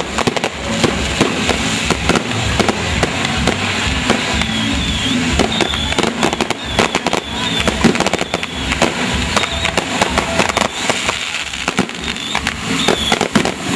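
Barco de fogo and buscapé fireworks going off: a continuous hissing rush packed with rapid, irregular cracks and bangs, with short wavering high whistles now and then.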